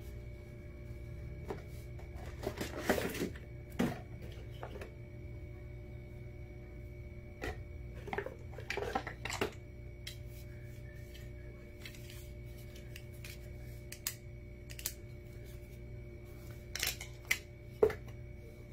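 Handling noise from a car jump starter pack, its clamp cables and a cardboard box being lifted out and set down: scattered clicks, knocks and rustles in small clusters, the sharpest near the end, over a steady hum.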